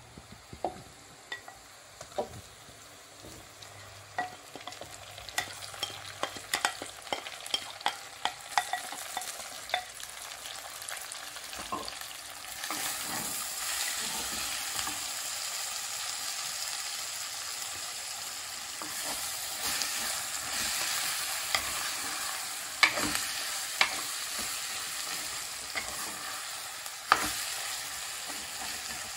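Cooking-melon pieces frying and being stirred in a clay pot: scattered knocks of the spoon against the pot, over a frying sizzle that grows louder about twelve seconds in.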